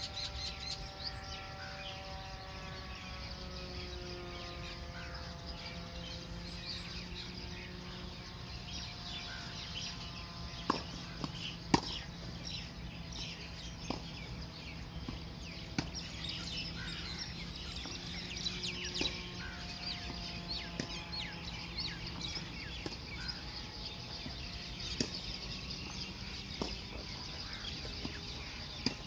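Birds chirping throughout, with a few sharp knocks of tennis balls struck by rackets, the two loudest a second apart near the middle. A faint drawn-out droning tone fades out within the first several seconds.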